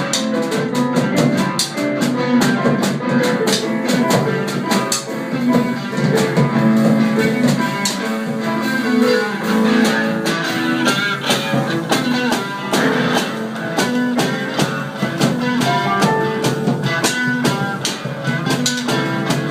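A band playing improvised instrumental music, with guitar over drums and cymbals keeping a steady, dense beat.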